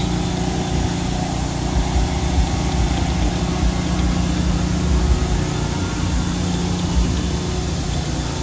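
An engine running steadily at idle: an even hum with a constant low tone and rumble.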